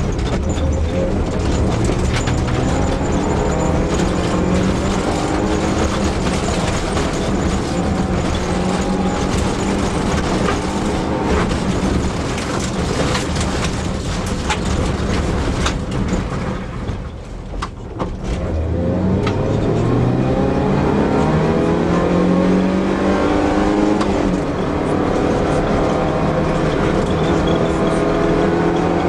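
Fiat Seicento Sporting Abarth rally car's small four-cylinder engine driven hard on a special stage, its pitch climbing through the gears. It eases off briefly about two-thirds of the way through, then accelerates again through several upshifts, with scattered sharp ticks along the way.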